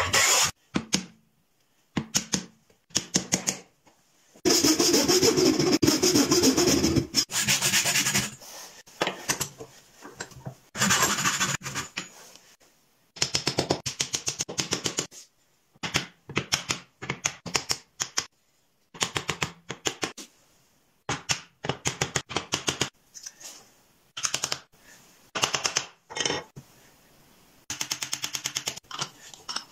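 Hand-tool woodworking: a hand plane shaving wood in long strokes, and a hammer tapping wooden joinery parts together in quick runs of taps.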